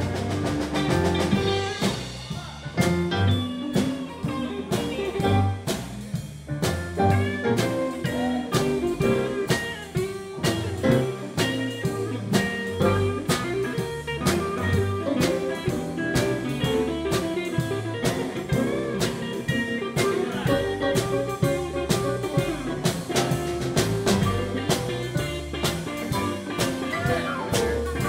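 Live blues band playing an instrumental stretch: electric guitar over a drum kit's steady beat with cymbals, and keyboard.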